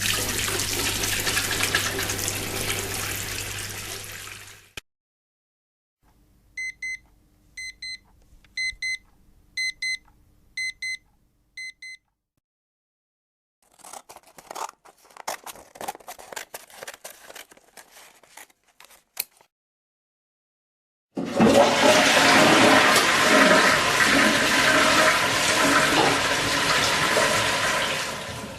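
A series of household object sounds: a toilet flushing with a low hum, then about seven short high electronic beeps in a steady rhythm, then a quick run of sharp clicks, and from about 21 seconds a loud steady whir of a motorised appliance.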